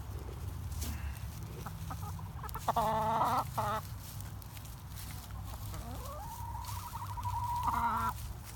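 Chickens calling: a loud clucking call about three seconds in with a short one right after, then a long call that rises and is held from about six seconds in to near the end.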